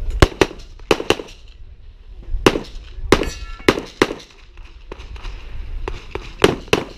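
Pistol shots fired in quick pairs, about a dozen in all, with short pauses between the pairs and a brief echo after each shot.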